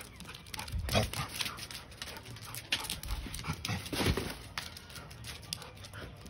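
A Labrador retriever making a series of short vocal noises as it plays with water from a garden hose. The loudest come about a second in and again around four seconds in.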